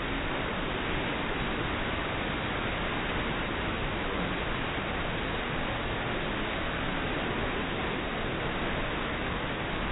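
Steady, even rushing noise of running and splashing water in an indoor waterpark hall, with no distinct events.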